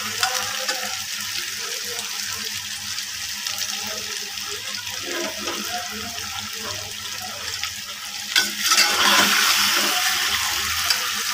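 Taro root sizzling in hot oil in an aluminium pot, stirred with a perforated metal spatula that scrapes and clicks against the pot. About eight seconds in the sizzle grows louder as raw chicken pieces go into the hot pot.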